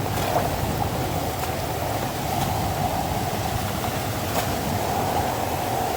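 Steady rushing of floodwater, with a few faint ticks.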